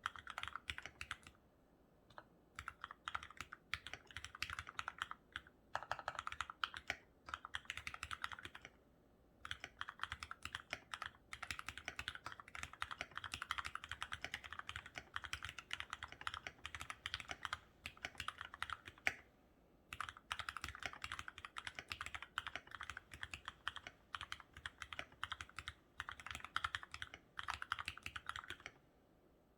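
Continuous typing on a COX CK87BT mechanical keyboard with retooled Cherry MX Black linear switches, lubed with Krytox, foam-dampened case, Cherry-profile keycaps. The keystrokes come in fast runs broken by a few brief pauses, about 2 and 9 seconds in, again around 19 seconds and near the end.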